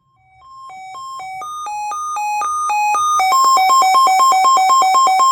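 Midland WR120 weather radio sounding its siren test: an alarm of two alternating beeping tones that starts faint and grows louder. About three seconds in, the tones switch to a rapid back-and-forth warble. It is loud.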